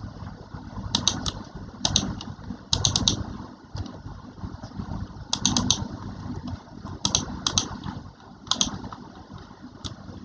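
Keys typed on a computer keyboard in short bursts of three or four quick keystrokes, with pauses between, over a steady low rumble.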